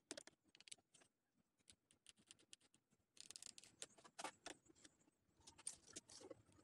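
Faint scratching of a graphite pencil on drawing paper, in short strokes that bunch into quick runs about three seconds in and again near the end.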